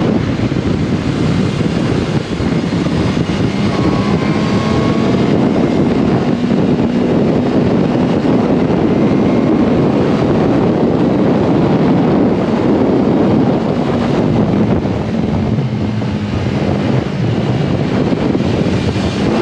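Yamaha R1's inline-four engine running while the motorcycle rides at speed, its faint steady tone half-buried under heavy wind rush on the microphone. The level dips a little a few seconds before the end.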